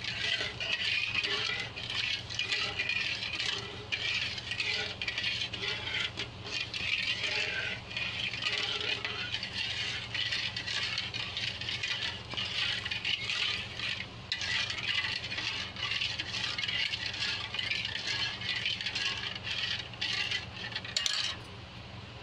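A metal ladle stirring sugar and water in a metal kadhai, scraping and clinking quickly and continuously against the pan as the sugar is dissolved for syrup, then stopping near the end. A steady low hum runs underneath.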